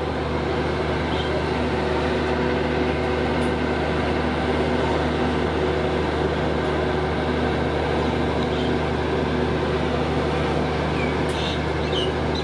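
Steady diesel hum of a standing air-conditioned passenger train idling, with a constant low drone.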